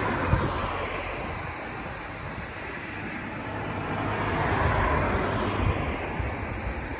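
Wind buffeting the microphone, a gusty rumble with a rushing sound that swells about four to five seconds in.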